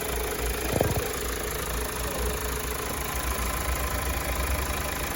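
2015 Mazda CX-5 engine idling steadily with the air conditioning running, a low even hum, with one brief knock just under a second in.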